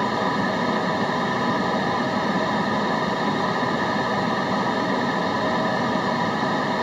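Steady white noise: an even, unchanging hiss with no events or rhythm, played continuously as background noise for concentration.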